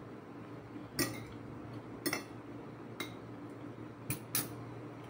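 Spoon and fork clinking against a plate while eating. There are five light clinks roughly a second apart, and the last two come close together.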